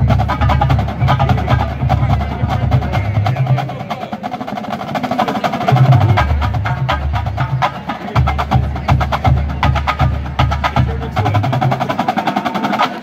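College marching drumline playing a warm-up: snare drums and tenors in fast rolls and strokes over low bass drum pulses, with marimbas ringing from the front ensemble. It eases off about four seconds in, comes back strongly around six seconds, and stops near the end.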